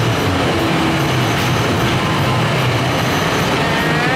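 Arcade din: a loud, steady wash of machine noise and background sound, with faint electronic game tones and a rising tone near the end.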